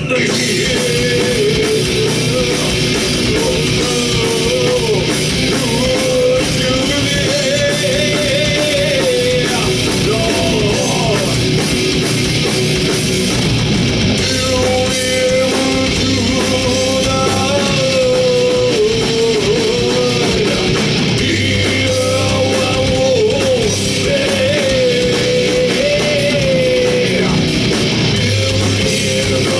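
Rock band playing live, a voice singing a wavering melody over guitars.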